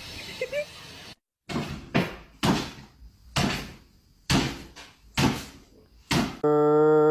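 About nine sharp bangs at uneven intervals, each dying away quickly, followed by a steady buzzing tone that lasts about a second and cuts off abruptly.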